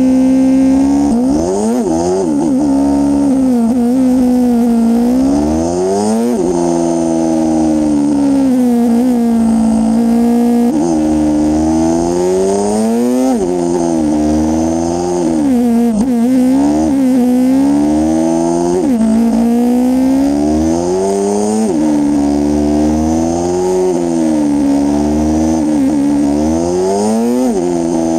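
Motorcycle engine running close to the microphone on the move, its pitch climbing and dropping again and again every few seconds with throttle and gear changes along a winding road.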